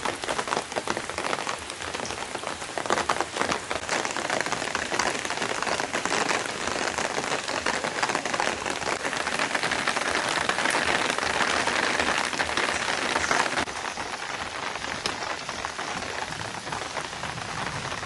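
Steady rain falling, a dense hiss of many small drop hits. It eases slightly about two-thirds of the way through.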